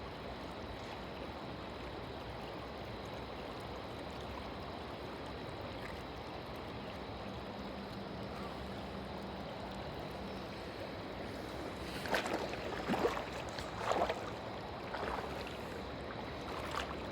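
Steady rush of flowing river water, with a handful of short, sharp splashes near the end, typical of someone moving through the water.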